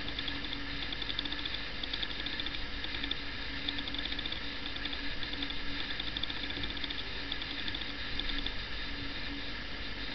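A dog pawing and scratching at blankets in a cardboard box, in repeated runs of quick fine ticking over a steady hum.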